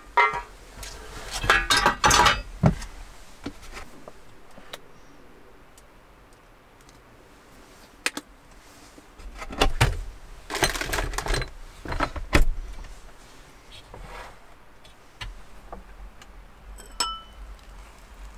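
Clinks and clatter of cookware and tableware being handled, in several bursts. Near the end, a single short ringing clink.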